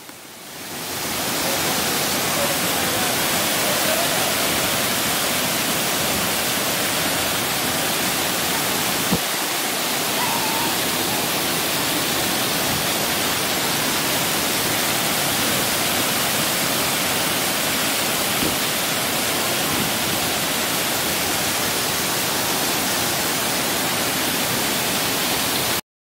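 Thiruparappu waterfall on the Kodayar River, water falling about 50 feet onto a rocky river bed in a steady, dense rush. It fades in over the first second or so and cuts off suddenly just before the end.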